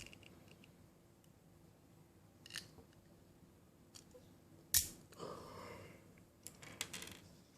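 Faint clicks and light scraping of a small tool working the metal parts of a miniature alloy Luger P08 model pistol during disassembly, with a sharper click about five seconds in and a quick run of clicks near the end.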